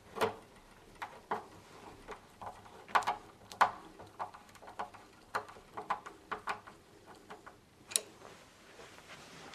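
Wood screws being driven by hand through a lever handle's backplate into a door: irregular small clicks and taps of a screwdriver on metal screws, a few a second.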